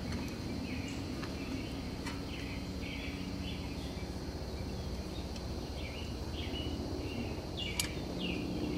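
Outdoor background noise with small birds chirping in short, repeated notes, and one sharp click near the end.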